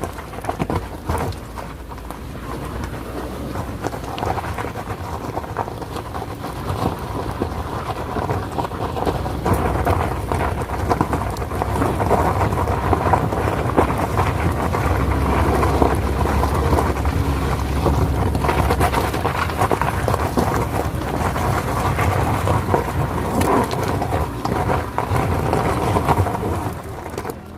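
Suzuki XL7's 1.5-litre four-cylinder engine straining as the SUV tries to climb a steep, rough dirt track, with a constant crackle of loose stones and gravel under the tyres. The low engine rumble grows louder from about a third of the way in. The tyres spin and the car cannot make the climb.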